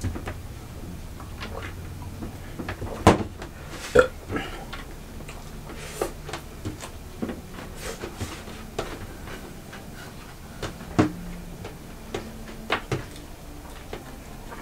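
Eating sounds: scattered small clicks and knocks of people eating biryani from plates, with a few sharper knocks about three and four seconds in and again near eleven seconds, over a low steady hum.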